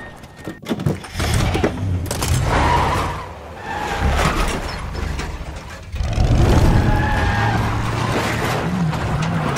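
Pickup truck engine running and revving as the truck drives and turns. It gets suddenly louder about six seconds in, and its pitch rises briefly near the end.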